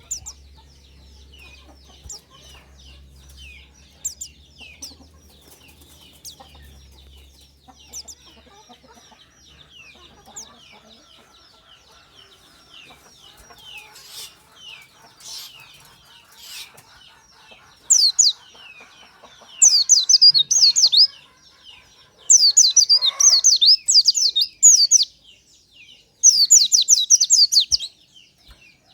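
White-eye (pleci) singing: a steady stream of high, thin chirps, breaking into loud, rapid trilled phrases of quick falling notes in the second half.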